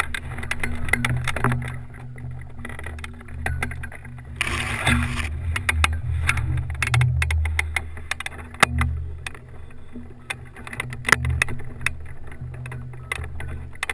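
Wind buffeting a wing-mounted camera's microphone as a low, uneven rumble, with scattered sharp clicks and rattles and a brief hissing gust about four seconds in.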